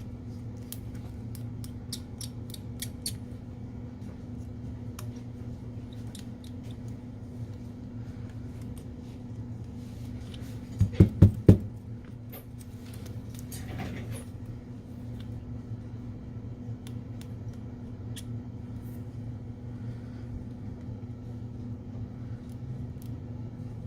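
Small metal clicks and scrapes of a precision screwdriver working the bottom pentalobe screws of an iPhone 6s, over a steady low hum. About halfway through, four quick loud knocks sound.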